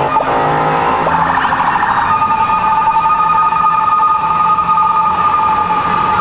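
Emergency vehicle siren sounding on the street, warbling for about two seconds and then holding a steady tone.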